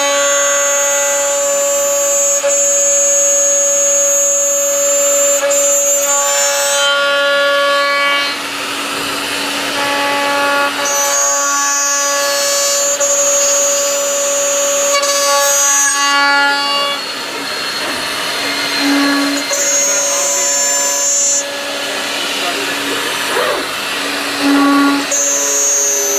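CNC aluminium profile machining centre milling aluminium profile: a loud, steady, high-pitched cutting whine with a high spindle whine over it. It comes in several passes, breaking off about 8, 16 and 22 seconds in and returning each time.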